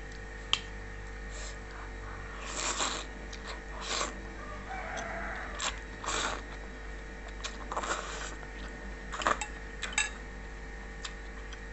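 Someone eating black noodles: several short slurps and mouth noises a second or two apart, with a sharp click of a utensil near the start.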